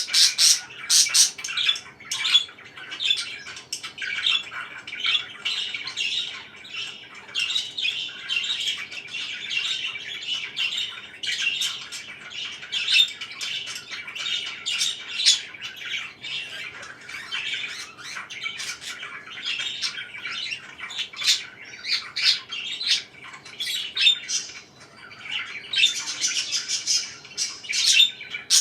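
Pet parakeets chattering in a dense, continuous stream of short, rapid chirps, busiest at the start and again near the end.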